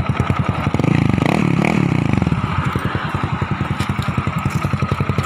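Scooter's aftermarket Spyker exhaust, freshly repacked with new muffler fiber, idling with a steady pulse and revved up and back down a couple of times about a second in. The crisp note is the sign that the repacking has brought the pipe's sound back to how it was.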